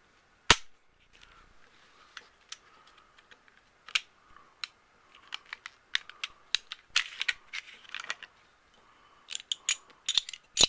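Unloaded Glock 19 pistol being field stripped one-handed: one sharp metallic snap about half a second in, then a run of small clicks, rattles and scrapes as the slide and parts are worked.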